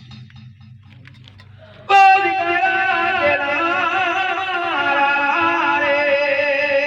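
Devotional music: after a soft lull, sustained, horn-like melodic notes enter loudly and suddenly about two seconds in and hold on, several pitches sounding at once.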